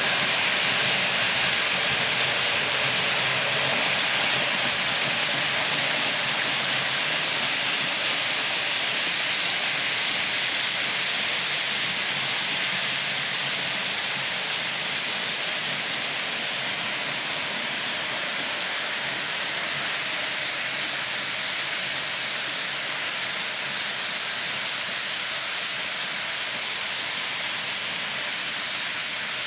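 Märklin model freight train rolling past close by: a steady rushing rumble of many wagon wheels on the metal track, easing slightly toward the end.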